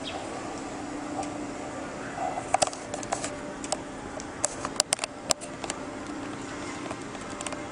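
Steady low background hum with a scatter of sharp clicks and taps in the middle, several of them close together.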